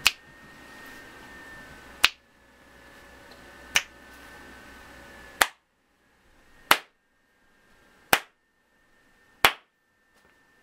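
Seven sharp single snaps made by hand, spaced about one and a half seconds apart. Each one sets off the clap-switch kit's microphone and toggles its LED on or off.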